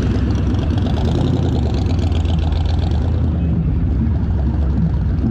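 A vehicle engine running steadily at low revs, a deep, even rumble.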